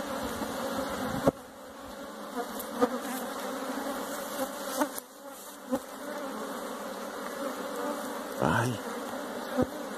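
Honey bees buzzing steadily around an opened hive and a frame of brood comb, with a few light clicks, the sharpest about a second in.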